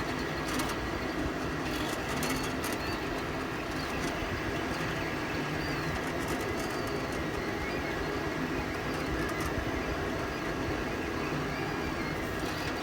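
FLSun delta 3D printer running a print: a steady hum of fans and motors, with the stepper motors' whine wavering in pitch now and then as the print head moves.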